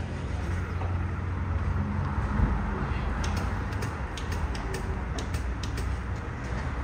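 Steady low engine rumble of boats motoring through the harbour, with a run of light clicks about halfway through.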